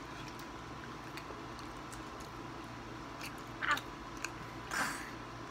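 Faint chewing and mouth noises from people eating pizza, over a steady hum, with two short louder sounds about a second apart near the end.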